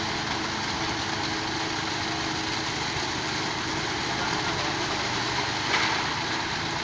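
Engine running steadily at low speed, with one short knock or clank near the end.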